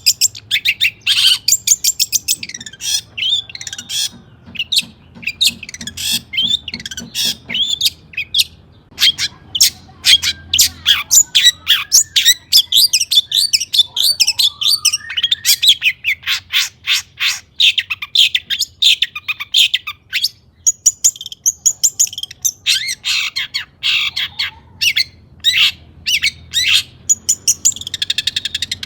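Long-tailed shrike (cendet) singing a fast, loud, varied song of sharp chattering notes and high whistled glides, with short pauses between bursts.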